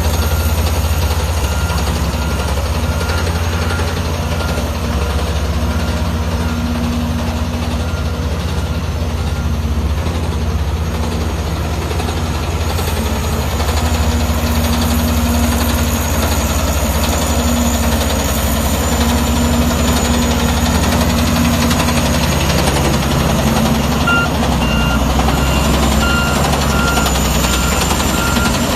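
Heavy earthmoving machine's diesel engine running steadily with a deep hum. A reversing alarm beeps repeatedly near the start and again near the end.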